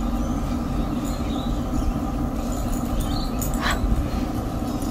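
A dog's short faint whimper about three and a half seconds in, over a steady background hiss.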